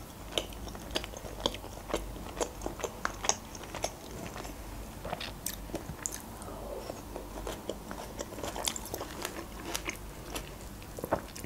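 Close-miked chewing of grill chicken: many short, wet mouth clicks and smacks at an uneven pace, with no talking.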